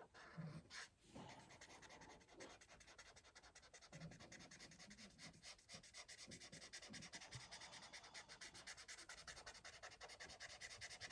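Faint rubbing of an alcohol marker's felt nib on paper, in rapid, even back-and-forth colouring strokes.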